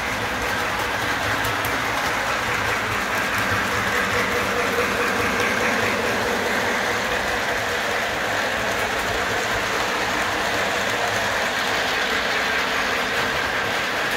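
Model freight train running along the layout's track, a steady rolling rumble of wheels and motor that holds even throughout.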